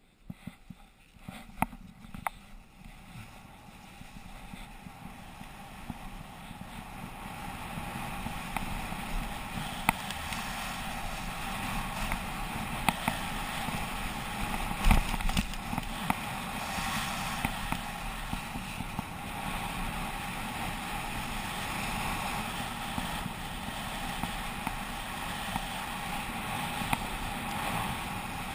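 A downhill run on packed snow: a steady rush of wind on the microphone and sliding over the groomed snow, building as speed picks up over the first several seconds and then holding steady. A few sharp clicks come in the first couple of seconds.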